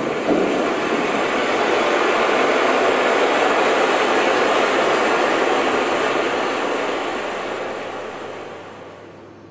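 Loud rushing noise that builds over the first couple of seconds, holds steady, then fades away over the last two seconds.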